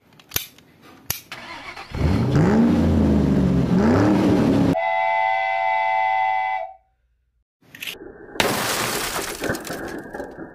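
A string of sound effects: two sharp clicks, then an engine revving up and down twice, then a steady horn blast lasting about two seconds. After a short silence comes a loud noisy burst that fades away.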